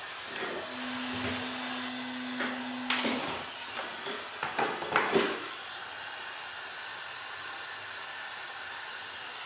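Heat gun blowing steadily to soften the glass adhesive, with a low steady hum for the first few seconds. A few sharp clicks and taps come around three seconds in and again around five seconds in.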